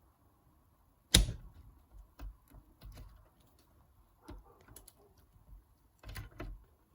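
A sharp metal knock about a second in, then scattered light clicks and taps: the clutch master cylinder being pumped by levering on it with a bar while it is clamped in a vice.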